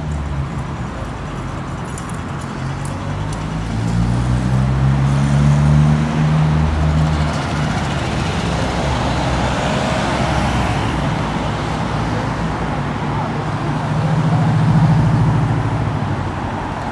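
City street traffic with cars passing close: an engine rises in pitch as a vehicle pulls away about four seconds in, tyre noise swells as a car goes by mid-way, and another engine hum grows loudest near the end.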